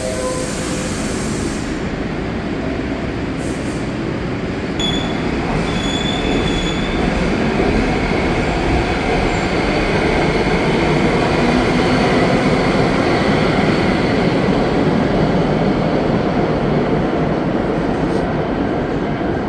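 Subway train running: a steady, loud noise of wheels on track, with brief high-pitched wheel squeals about five to seven seconds in, growing a little louder toward the middle.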